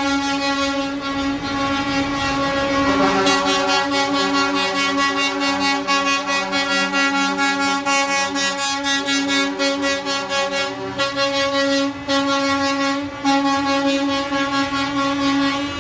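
Tractor-trailer air horns sounding together in a long, held chord of several steady tones. Extra lower tones join about three seconds in and drop out about nine seconds in.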